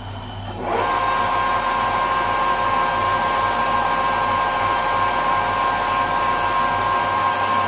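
Metal lathe spinning up about a second in, then running with a steady whine and hum. A steel tube turns in the chuck while it is rubbed clean by hand, adding a hiss from about three seconds in.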